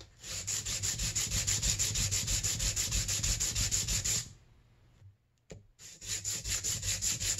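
220-grit sandpaper on a hand sanding block rubbed back and forth across the top of a snowmobile cylinder head, in quick rhythmic scraping strokes, to bring back the finish on the head's top surface. The strokes stop about four seconds in; there is one light knock, and they start again about two seconds later.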